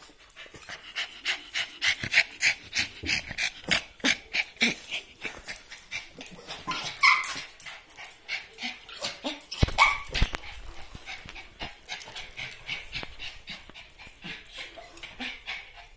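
A dog panting fast and hard in play, about four breaths a second, with a couple of short barks around the middle, one with a thump.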